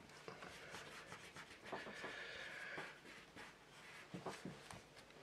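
Faint handling sounds of fingers pressing and rubbing a strip of masking tape down on a cutting mat: light scattered taps and rustles, with one longer rub lasting about a second near the middle.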